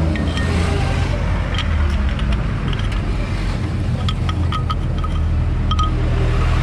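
Mitsubishi Fuso truck's diesel engine idling steadily. A few light metallic clinks sound between about four and six seconds in.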